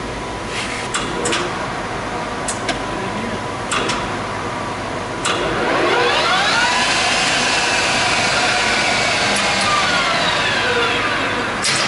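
Several sharp clicks and clunks from the SuperMax 13" x 40" gap bed engine lathe's levers being set. About five seconds in, its geared headstock spins up with a rising whine, runs steadily at speed, and begins to wind down with a falling whine near the end.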